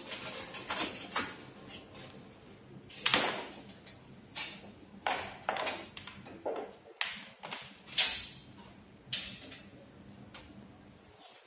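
Scattered clicks and metallic knocks from a steel laptop charging cart being handled: the key lock on its lower access panel turning and the sheet-metal panel door opening. The sharpest clicks come about three seconds in and again a little past the middle.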